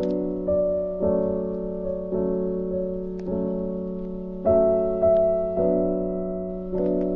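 Slow piano music: chords struck about once a second, each left to ring and fade.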